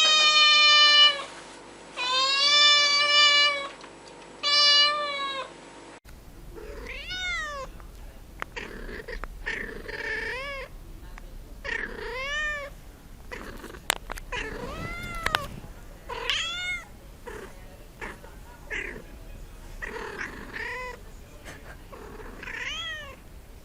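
Cats meowing. First come three long, loud meows; then a different cat gives a long run of shorter meows that rise and fall, about one a second.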